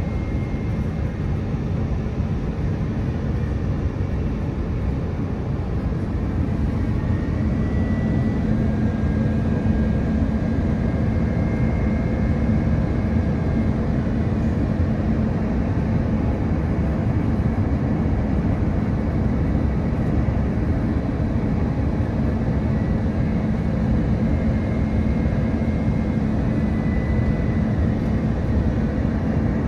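Airbus A350 cabin noise: the Rolls-Royce Trent XWB engines and airflow heard from inside, a steady deep noise with a low hum that grows a little stronger about six seconds in, and faint high tones above it.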